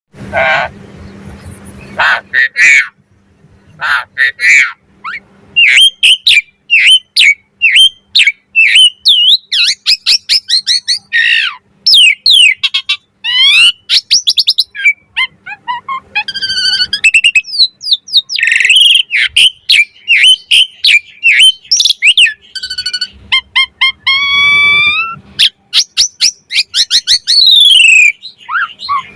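Asian pied starling (jalak suren) singing its 'mompa' pumping song: a fast, varied run of loud whistles, chirps and rougher squawky notes, with short pauses between phrases.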